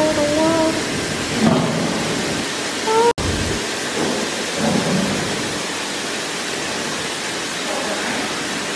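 Water gushing from filling hoses into large plastic jugs, a steady loud rushing and splashing as the jugs fill to overflowing, with a brief break about three seconds in.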